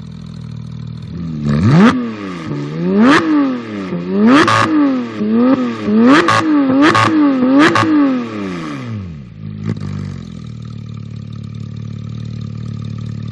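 Porsche 991 GT3 flat-six engine through an iPE Innotech titanium exhaust, idling and then blipped hard about six times in quick succession, each rev rising sharply and dropping straight back, before it settles back to a steady idle.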